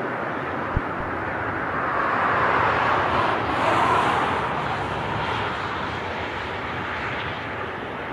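Jet airliner engine noise rising and then fading over a few seconds as the aircraft passes, with wind on the microphone and a brief low thump about a second in.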